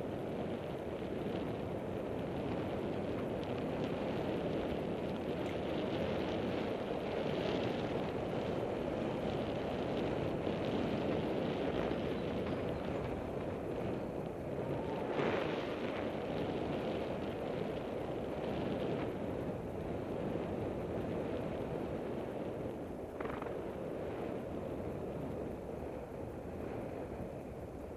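Wind buffeting the microphone of a camera riding on a moving bicycle: a steady rushing noise, with one brief louder bump about halfway through.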